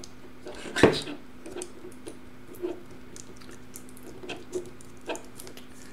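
Light clicks and taps as a laptop LCD inverter board is pried loose from the edge of the screen panel, with one sharper knock about a second in.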